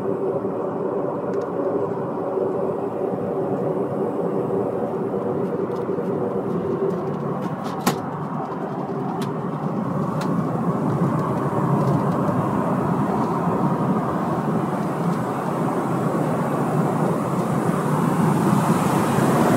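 Steady in-flight cabin noise of a Boeing 747-8: a continuous rush of air and engine hum. There is a single sharp click about eight seconds in, and the hiss grows brighter and a little louder near the end.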